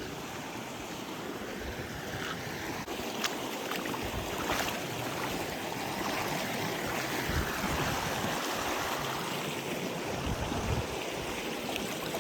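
Steady rushing noise with a few light clicks scattered through it, swelling slightly in the middle.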